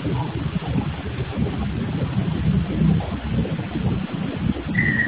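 Steady rumbling noise of granite workshop machinery, picked up by a security camera's microphone. A high, thin tone starts near the end.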